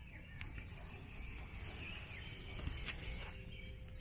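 Small birds chirping in the background, short falling chirps repeated throughout, over a low steady rumble, with a faint click about half a second in and another near the three-second mark.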